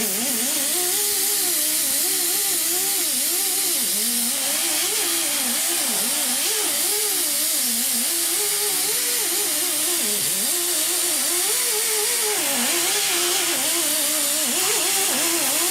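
Power tool stripping paint from sheet metal: a steady hiss over a motor whine whose pitch keeps dipping and recovering as the tool is pressed into the metal and eased off.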